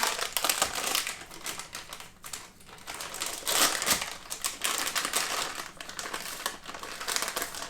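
Rapid, irregular clicking and scraping of a spice container and measuring spoon as a teaspoon of ground cinnamon is measured out.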